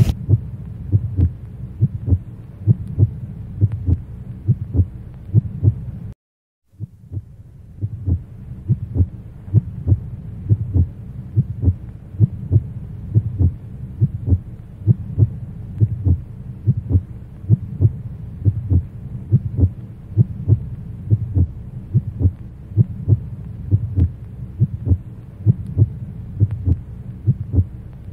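Heartbeat sound effect: a steady, regular low thumping over a deep hum, cutting out for a moment about six seconds in.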